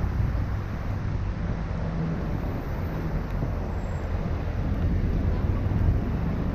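Steady city street traffic heard from a moving bicycle: a continuous low rumble of passing motor vehicles.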